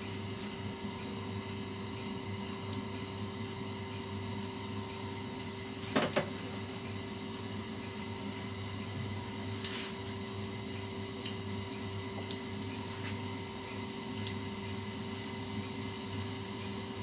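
Breaded banana fritters on skewers sizzling steadily in hot oil in a wok. There is a sharp knock about six seconds in and a few light clicks a few seconds later, as more skewers go into the pan.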